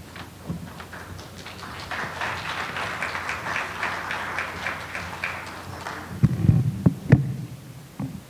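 Audience applause, a dense patter of clapping that swells and then fades out after a few seconds. It is followed by low thumps and a couple of sharp knocks from a podium microphone being handled.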